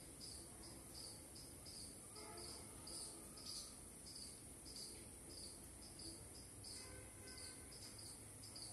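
Faint insect chorus: a cricket-like chirp repeating a few times a second over a steady high hiss of other insects.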